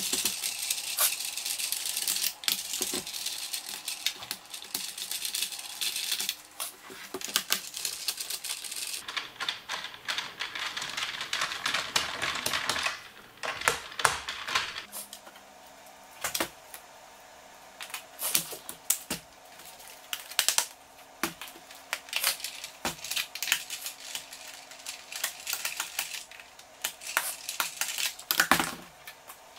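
Plastic case of an electric bike battery pack being taken apart with a screwdriver: irregular clicks, scrapes and rattles of hard plastic and screws. Dense scraping for the first dozen seconds, then sparser separate clicks.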